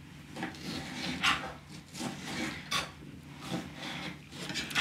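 Kitchen knives cutting bell peppers into strips on plastic chopping mats: soft, irregular cutting strokes, roughly one a second.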